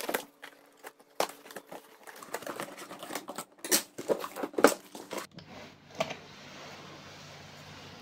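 Utility knife slitting packing tape along a cardboard box, then the cardboard flaps being pulled open, in a run of scraping, rasping strokes and sharp cracks, the loudest about four and five seconds in. About five seconds in it gives way to a faint steady hiss.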